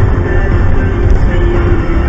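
Background music with a heavy bass and steady held notes.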